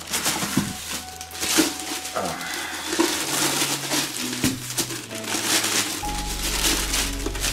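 Helmet packaging being handled and unwrapped, with irregular crinkling and rustling over steady background music.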